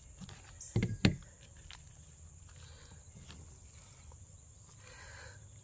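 Two sharp knocks close together about a second in, then a faint steady high trill of crickets, with quiet handling of a plastic-wrapped ham being cut and pulled open.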